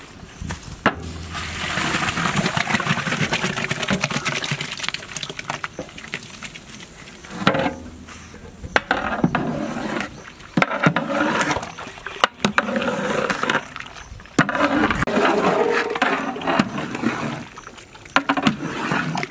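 Soaked broken wheat is poured from a bowl into a large pot of boiling haleem with a rush of liquid. A long metal paddle then stirs and sloshes the pot in bouts, with several sharp knocks of metal on the pot.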